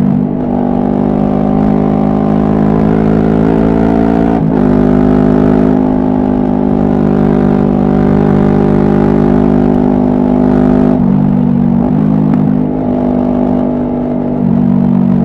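Suzuki GSX250R's 248 cc parallel-twin engine pulling along the road, heard from the rider's seat. The pitch climbs for about four seconds, drops sharply with a gear change, then holds fairly steady. It dips briefly about eleven seconds in before picking up again.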